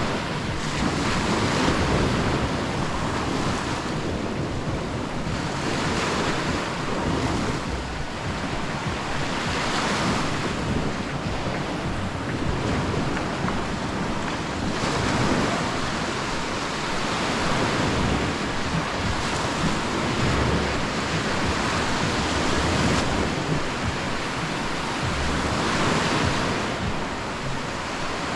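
Sea surf breaking and washing up the beach, swelling and easing every few seconds, with wind buffeting the microphone.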